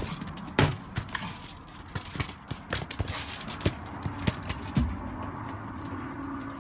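Cocker spaniel's claws clicking and scrabbling on concrete paving slabs as it chases and paws a child's football, with irregular knocks of the ball against the slabs. The loudest knock comes about half a second in.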